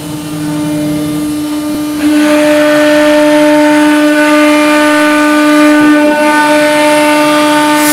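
CNC router spindle running with a steady high whine while its bit engraves an MDF board. About two seconds in it gets louder, with a rasping cutting noise over the whine as the bit works into the board.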